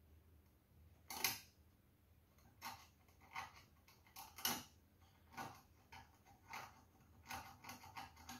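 Faint, irregular short scrapes and clicks as fingers twist a thin wire around the burnt-out heater terminal of a Bosch/Siemens dishwasher heater pump. The loudest click comes about a second in.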